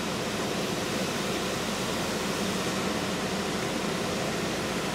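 Steady, even hiss with a low hum inside a stopped car's cabin, unchanging throughout.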